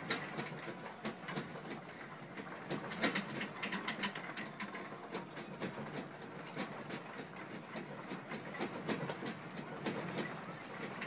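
Objects on metal wire shelving rattling and clattering in a room shaken by an earthquake: a dense, irregular run of clicks and knocks, the loudest about three seconds in.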